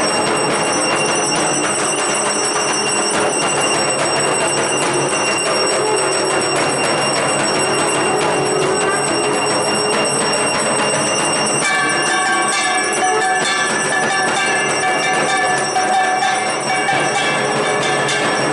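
Brass hand bells of a Hindu puja aarti ringing continuously in a dense, clattering jangle. About twelve seconds in, the sound changes abruptly to a sparser mix with steady held tones.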